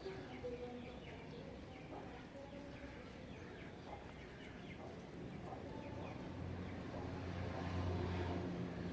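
Small birds chirping over and over in quick, short notes. A low hum swells up about six seconds in and fades just before the end.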